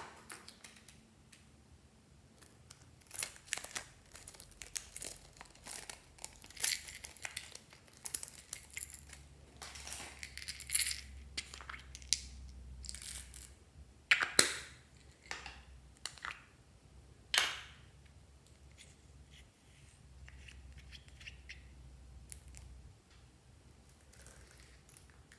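Small plastic container of beads being handled: the lid clicking and small plastic beads rattling as they are tipped into a glass dish, heard as a scattering of sharp clicks and short rattles, the two loudest about halfway and two-thirds through.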